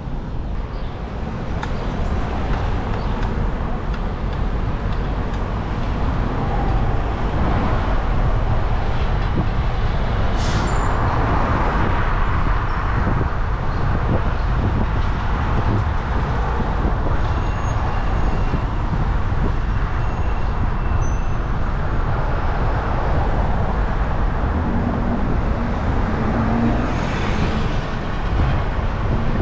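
Steady rushing noise of a bicycle ride, mostly wind buffeting the microphone, heaviest in the low rumble and continuing without a break.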